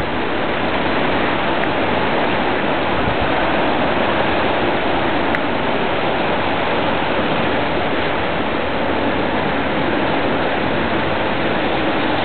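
Wind and rain of a tropical storm: a steady, even rushing noise that holds at one level without letup.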